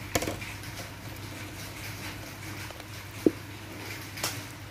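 A spatula working wet rice-flour and coconut-milk batter in a wok, over a steady low hum. A few light clicks come near the start, the loudest short knock about three seconds in, and one more click near the end.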